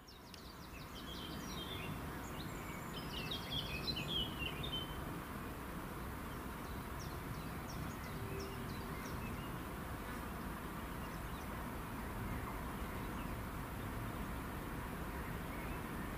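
Songbirds chirping and twittering, mostly in the first five seconds, over a steady low background rumble of outdoor ambience.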